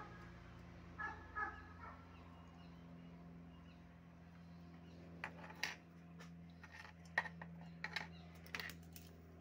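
Scattered sharp clicks and taps of a screwdriver and wire being worked at a screw terminal on an amplifier board, bunched in the second half, with the loudest click a little past the middle. About a second in, an animal gives a few short high calls. A low steady hum runs underneath.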